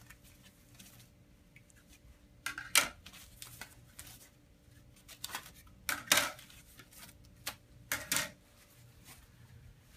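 Plastic mesh wrapping rustling and crinkling as ceramic ozone plates are pulled out of it by hand, in three louder bursts with lighter handling noises between.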